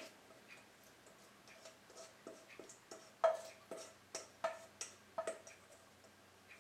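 Spatula scraping and tapping against the inside of a stainless steel mixing bowl to get out the last of the vegetable filling: a run of sharp metallic clicks, each with a short ring. They start faintly and come about three a second in the middle of the stretch.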